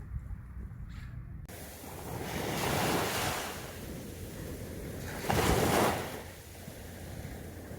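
Sea waves washing in, an even rush that surges twice, with some wind on the microphone.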